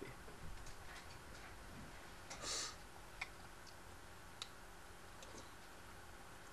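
A few faint, scattered clicks and ticks over quiet room tone, with a short hiss about two and a half seconds in.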